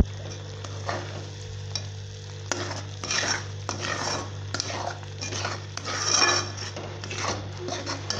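A metal spoon stirring thick masala gravy with peas in a pot: a run of irregular wet scraping strokes against the pot from about a second in, loudest a little after the middle, over a steady low hum.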